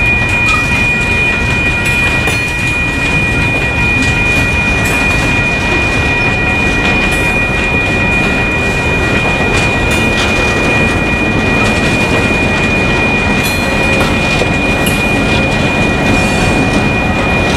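Freight train of open hopper cars rolling past, shoved from the rear by its locomotive: steady rumbling wheel and rail noise with scattered clicks, and a steady high-pitched squeal that holds throughout.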